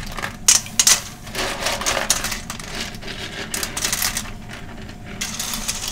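Handfuls of raw cockles (kkomak) clattering shell against shell as they are scooped from a plastic bowl and dropped into a steel pot of water. The sharpest clicks come about half a second to a second in.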